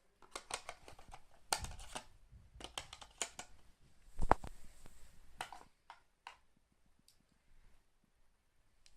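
Handling of a phone and its packaging: a run of light clicks, taps and brief rustles, with one sharper knock about four seconds in, then quiet handling near the end.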